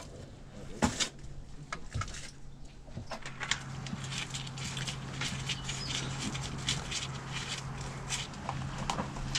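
Irregular light clicks, taps and knocks of hands handling tools and parts on a motorcycle, a few sharper knocks in the first couple of seconds, over a steady low hum.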